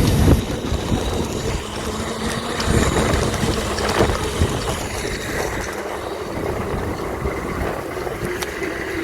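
Steady rumbling noise of a vehicle in motion, with a faint constant hum.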